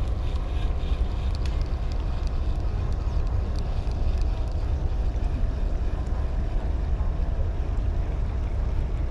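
Wind buffeting the microphone in a steady low rumble, with a faint steady engine drone from the large moored ferry.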